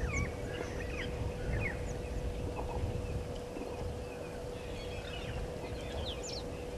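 Small birds calling in many short chirps and quick up-and-down notes, over a low rumble and a steady faint hum.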